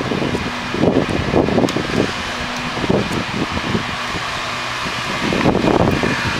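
Handling noise from an airsoft M4 as a battery is worked into its snug battery space: irregular rustling, light knocks and clicks over a steady low hum.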